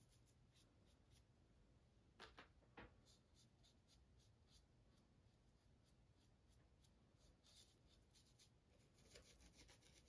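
Near silence with faint scratchy brushing of acrylic paint onto a textured canvas. Two slightly louder short scrapes come about two and three seconds in.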